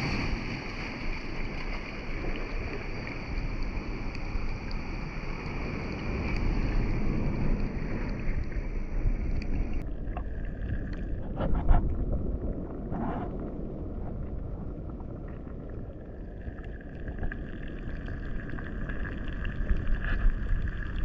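Wind and lapping water on the camera microphone at a rock pool's edge; about ten seconds in the camera goes under the water and the sound turns muffled, with a few brief knocks and gurgles.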